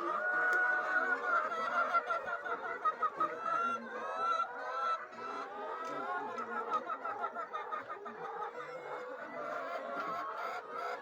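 Flock of laying hens clucking and calling together, many overlapping short calls, busiest in the first half.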